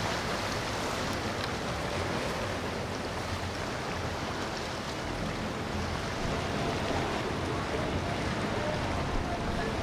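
Boats under way on a river: a steady wash of outboard motor noise and churning water.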